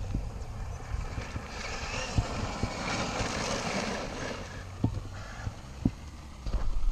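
Wind rumbling on the camera microphone with scattered knocks. From about a second and a half in to about four and a half seconds, a hiss rises and fades as the RC truck's tyres throw up dirt.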